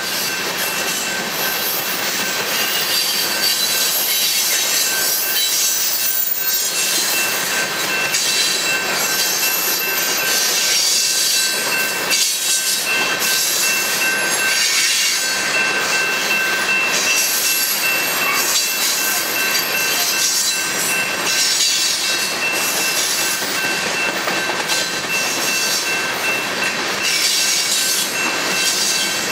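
Covered hopper cars of a freight train rolling past on steel rails: a steady rush of wheel and rail noise with faint recurring clacks, and a thin, steady high-pitched wheel squeal held over it.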